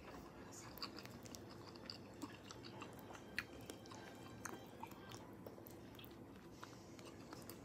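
Faint close-up chewing of santol fruit flesh, with scattered soft wet mouth clicks and smacks; a couple of sharper clicks stand out about a second and about three and a half seconds in.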